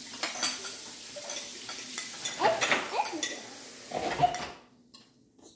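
Forks clinking and scraping against ceramic plates, with scattered light knocks of dishes being handled on a stone countertop.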